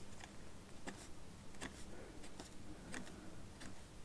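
Light, irregular ticks and taps of a pencil on paper, about two a second, over a low hiss.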